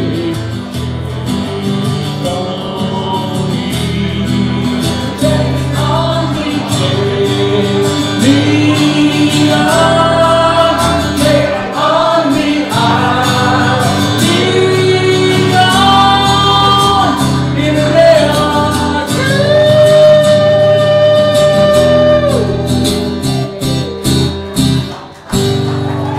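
A man singing long held notes that slide into pitch, with no clear words, over strummed acoustic guitar.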